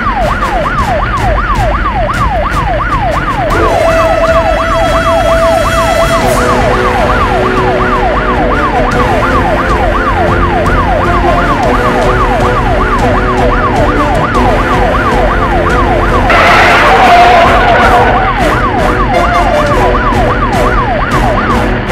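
Police siren in fast yelp mode, its pitch sweeping rapidly up and down a few times a second without a break. A louder rushing surge rises over it about sixteen seconds in.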